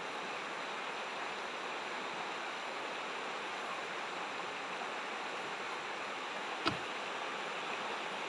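Shallow river rushing steadily over a rocky riffle. A single sharp knock sounds about two-thirds of the way through.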